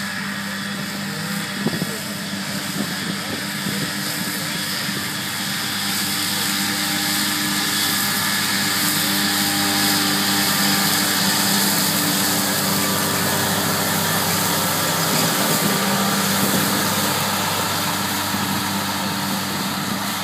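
Valtra tractor's diesel engine running under load while an Elho disc mower-conditioner cuts grass: a steady engine hum under a dense high whirring hiss. It grows louder towards the middle as the tractor comes closer, then eases off a little near the end.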